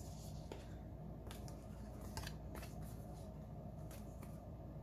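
Paper being handled: cash and savings envelopes rustling, with about eight short crisp crinkles and clicks spread unevenly over a few seconds.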